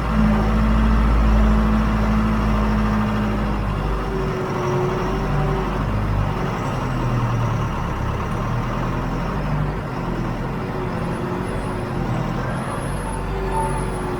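John Deere 410 backhoe loader's diesel engine running, its note dropping and shifting about four seconds in as the throttle or load changes.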